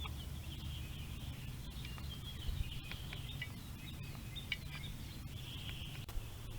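Birds chirping and trilling faintly over a steady low hum, with a few soft bumps.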